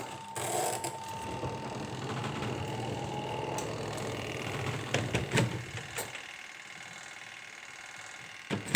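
Two-tub washing machine's motor running with its newly fitted capacitor, a steady mechanical hum with a whine for the first few seconds, broken by a few sharp clicks and one loud click near the end.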